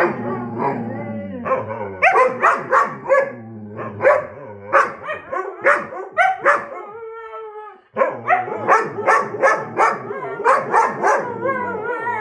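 Huskies howling and yipping together: a chorus of short calls that rise and fall about three times a second, breaking off briefly about eight seconds in, then longer drawn-out howls near the end.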